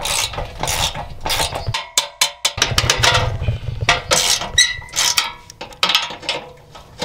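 Hand wrench working the bolts on a boat trailer's bunk brackets: a string of sharp metallic clicks and scrapes, with a quick run of close-spaced clicks about two seconds in.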